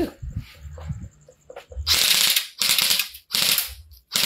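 Electric airsoft M4A1 CQB rifle firing short full-auto bursts, each a rapid rattle of shots lasting under half a second. Three bursts come in quick succession from about two seconds in, and a fourth starts right at the end.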